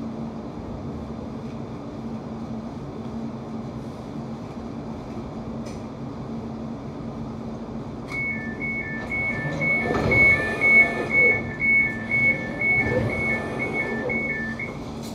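Class 710 electric train's interior running hum, then about eight seconds in the door alarm starts: a rapid, high two-tone beeping that alternates quickly and runs for about seven seconds while the doors open at the platform, with knocks and rumbles from the sliding doors.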